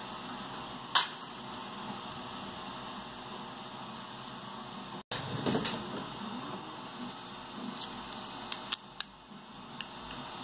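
Hands handling 3D-printed plastic parts with a screwdriver and hex key: one sharp click about a second in, then light handling noise and a few short clicks and taps in the second half, over a steady hiss.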